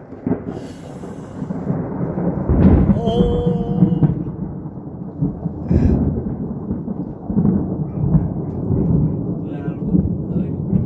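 Loud thunder from a close electrical storm, breaking suddenly and rolling on as a deep rumble, with louder swells about three and six seconds in.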